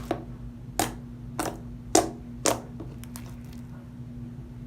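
Slime being worked by hand, giving four sharp clicking pops about half a second apart.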